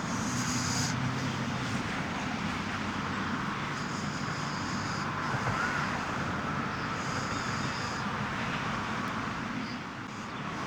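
Steady background noise of distant road traffic, with a brief high-pitched sound repeating three times.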